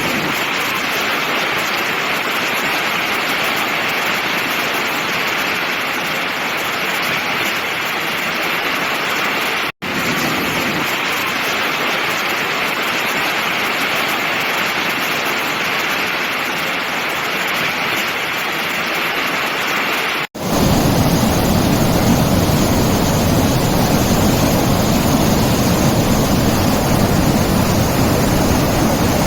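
A steady rushing noise, cut off abruptly twice, about ten and twenty seconds in; after the second cut it comes back deeper and fuller.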